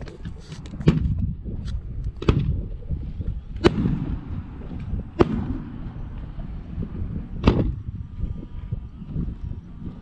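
Aerial firework shells bursting: five sharp booms, most about a second and a half apart, each trailing off in a low rumbling echo.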